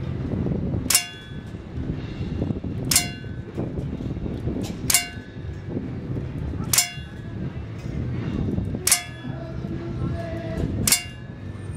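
Six .177 pellet shots from a CO2 air rifle, about two seconds apart, each a sharp crack that rings with a metallic clang as the pellet hits the target's steel backstop. A low steady murmur of background noise sits underneath.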